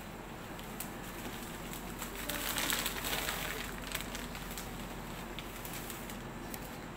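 Potting soil poured from a plastic bag into a plant pot, with the bag crinkling and small clicks of grit; the pour swells loudest for about a second, a little before the middle.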